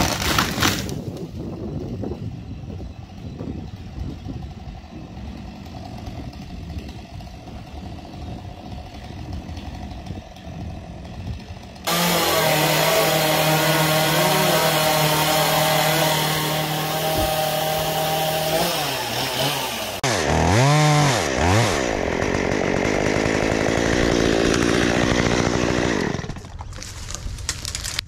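A chainsaw runs briefly at the start and then stops, leaving a quieter stretch of noise. About twelve seconds in a chainsaw starts up loudly at a steady high engine note. A little past halfway its pitch swings up and down as it revs, and it stops a couple of seconds before the end.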